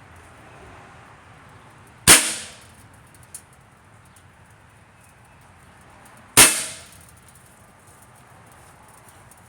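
Two shots from a Max Air 2 air gun, about four seconds apart. Each is a sharp crack that dies away within half a second. A faint click follows about a second after the first.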